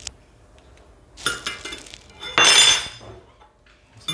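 Glass storage jars and kitchenware clinking and clattering: a run of clinks a little over a second in, then a louder, longer clatter around two and a half seconds in.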